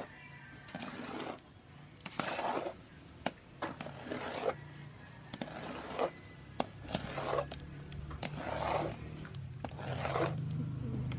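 Long wooden paddle scraping and stirring a thick purple yam mixture in a large metal wok, in repeated strokes about every second or so. A low steady drone grows louder in the second half.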